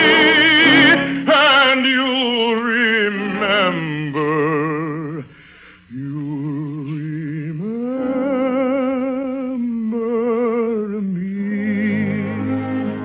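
Operatic singing with a wide vibrato and musical accompaniment. A loud held note breaks off about a second in, followed by slower phrases that fall in pitch, a brief hush around the middle, and then more long, wavering sung notes.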